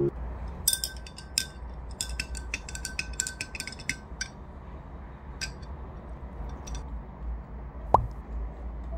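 Glass straw clinking against the inside of a glass jar as a milky drink is stirred: a quick run of light, ringing clinks in the first few seconds, then a few scattered taps. A single louder knock comes near the end.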